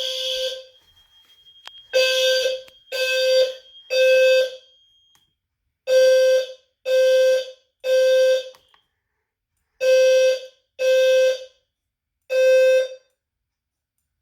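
Low-frequency fire alarm horn strobe sounding the temporal-3 evacuation pattern: a low buzzing tone pulsed three times about a second apart, a pause, then again, three rounds before it stops near the end. The alarm was set off by smoke-testing a detector.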